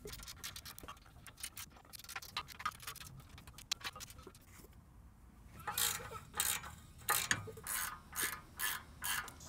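Ratcheting wrench clicking on a 14 mm exhaust flange nut. It starts as light, irregular ticking, then from about halfway becomes a run of louder clicking strokes, roughly two a second.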